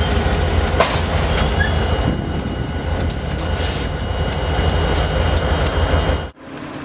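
CSX diesel freight locomotives rolling past: a heavy, steady engine rumble with sharp clicks of the wheels over the rail joints. The sound cuts off abruptly near the end, leaving a quieter hum.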